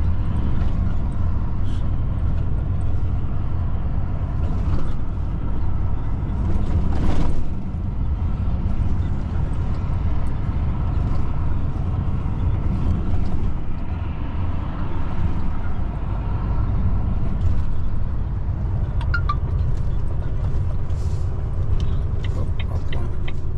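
Truck engine and road noise heard inside the cab of a moving truck: a steady low drone, with a brief louder rush about seven seconds in and a few light clicks near the end.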